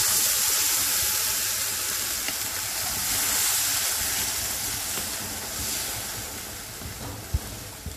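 Spinach purée sizzling and hissing as it is poured onto the hot butter-and-oil masala in a wok and stirred with a wooden spatula. The sizzle is strongest at the start and slowly dies down, with a couple of short knocks near the end.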